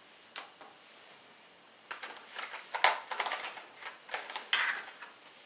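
Game dice being picked up and set down on cards on a wooden table: a scatter of light clicks and small clatters, densest from about two seconds in.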